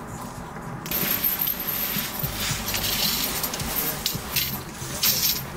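Light metal clinking and jangling of objects being handled, a busy run of small knocks and clinks starting about a second in and stopping near the end.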